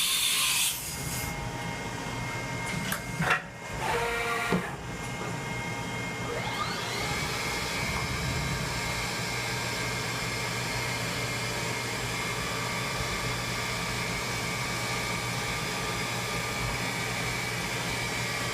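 1994 Haas VF2 CNC vertical mill's spindle spinning up with a rising whine about six seconds in, then running at steady speed with a high whine over a low hum. A hiss cuts off right at the start, and a few clicks and short whirs come a few seconds in.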